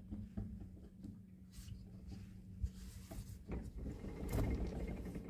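Irregular light knocks and clicks from a Lada Niva Legend's rear wheel being rocked, the sign of play in the wheel. A steady low hum runs underneath, and the knocking gets busier past the middle.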